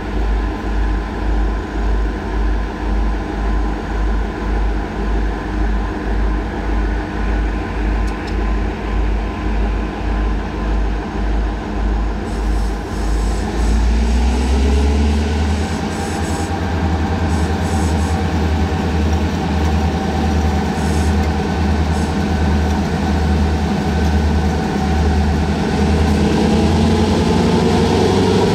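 Two EMD G26 diesel locomotives, with 16-cylinder two-stroke EMD 645 engines, idle with a low throb that pulses about twice a second. About 14 seconds in they throttle up to start a heavy freight train: the engine note rises in pitch and grows louder, and climbs again near the end as the train picks up speed.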